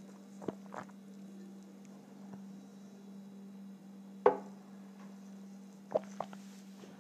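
A drinking glass set down on a table with one sharp knock about four seconds in, with softer clicks before and after as it is handled. A steady low hum runs underneath.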